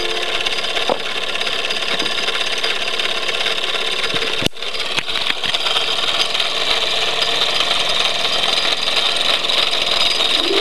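Wilesco D36 model steam roller's live-steam engine running steadily, a continuous hiss, as it turns the M99 organ between tunes with no notes playing. The sound breaks off briefly a little under halfway through, and the organ's first notes come in at the very end.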